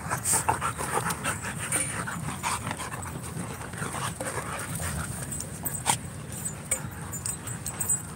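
Siberian huskies and another dog play-fighting up close: a jumble of short dog sounds and scuffling, busiest in the first three seconds, with a sharp click about six seconds in.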